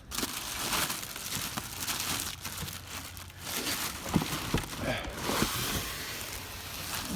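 Packaging being handled while unboxing an electric scooter: plastic wrapping crinkling and rustling, with a few light knocks.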